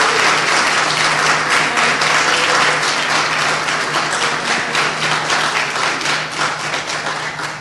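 Audience applauding: a dense clatter of many hands clapping that tapers off near the end.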